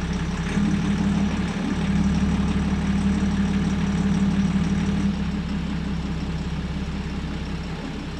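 Boat's single main engine running, nudged into forward gear by joystick: a steady low hum that eases a little after about five seconds.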